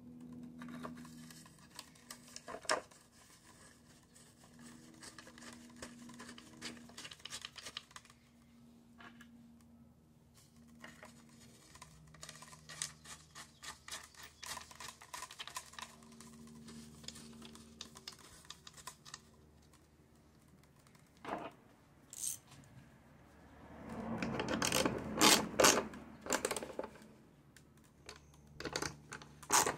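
Small metal clicks and scrapes of nuts, bolts and hand tools being handled against a fiberglass outboard motor hood, with a louder run of quick clicks about three-quarters of the way through. A ratchet wrench starts clicking near the end.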